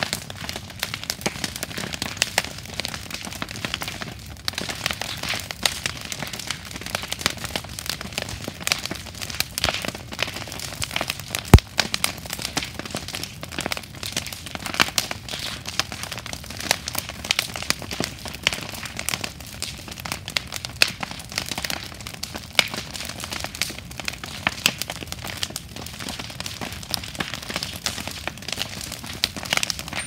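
Wooden bonfire of broken planks burning and crackling, a dense, irregular run of snaps and pops, with one much louder pop about a third of the way through.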